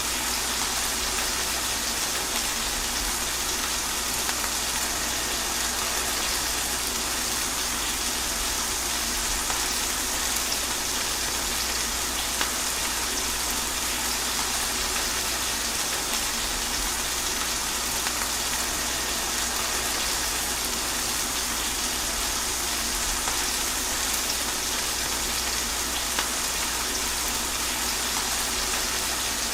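Rain falling steadily through trees: an even hiss that does not let up.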